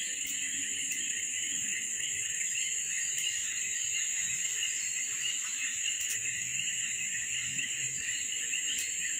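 Steady, high-pitched insect chorus in the trees: one very high continuous tone over a lower, shimmering buzz, unchanging throughout.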